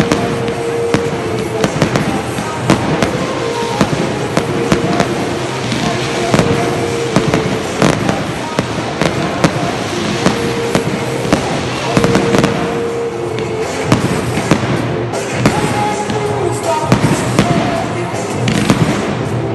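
Fireworks display: aerial shells bursting overhead in a continuous run of bangs and crackles, several a second.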